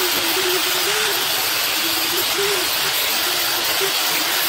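A power tool running steadily as it strips old paint off a steel trike frame down to bare metal, a constant rasping noise over a motor whine that wavers up and down.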